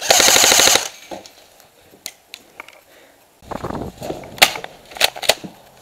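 Airsoft M249 light machine gun firing one rapid full-auto burst lasting just under a second. Later come scuffling and a few separate sharp cracks.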